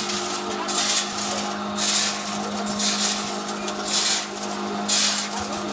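Potting machine running: a steady motor hum, with a short rush of noise about once a second as it cycles.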